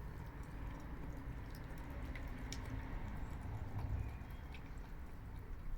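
A cat eating dry food from a bowl: faint, scattered crunches and clicks of kibble over a low rumble.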